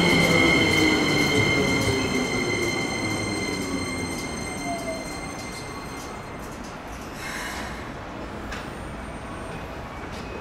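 Keikyu electric train slowing, its motor whine falling steadily in pitch under a high squeal, the whole sound dying away over about six seconds. A brief hiss follows about seven seconds in.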